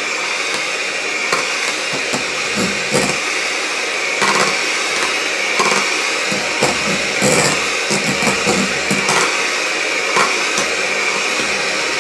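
Electric hand mixer running steadily at speed, its twin beaters whisking a thick egg-and-sugar foam in a stainless steel bowl as honey-milk is blended in, with occasional knocks. The motor winds down and stops about a second after the end.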